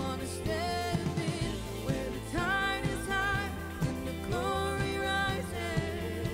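Worship song: a singer holds long notes with vibrato over a steady instrumental backing with a beat.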